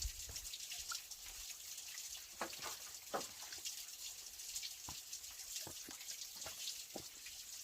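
Water running steadily, with scattered drips and small splashes.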